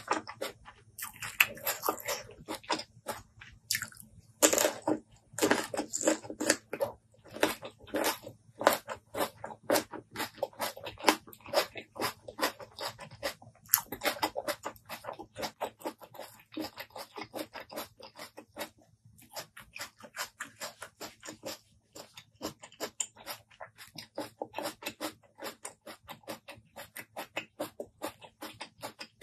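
Close-miked biting, crunching and chewing of a piece of raw green fruit: a dense run of crisp, wet crunches with a few short pauses.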